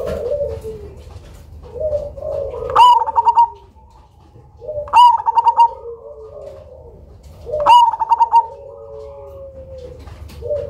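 A zebra dove of the black cemani variety singing its song three times, about every two and a half seconds. Each phrase is a sharp rising note, then a quick stutter of notes, then lower falling coos. Softer coos run between the phrases.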